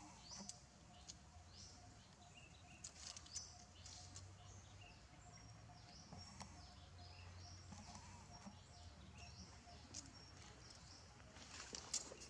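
Faint outdoor ambience with frequent short, high chirps from small animals, a few soft clicks, and a faint steady hum underneath.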